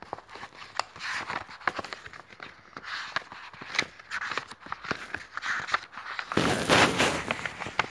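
Pages of a paperback book being leafed through by hand: scattered soft paper rustles and clicks, with a louder, longer rustle of handled paper in the last second and a half.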